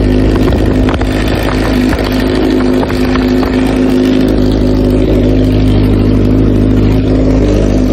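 Honda CBR1000RR's inline-four engine idling steadily, heard close to the exhaust outlet.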